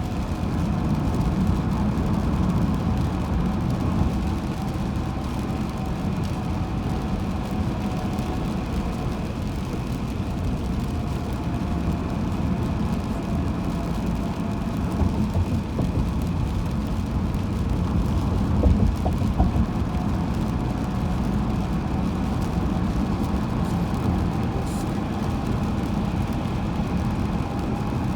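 Steady road noise of a car driving on a highway, a low rumble of tyres and engine, with a few brief louder bumps about halfway through.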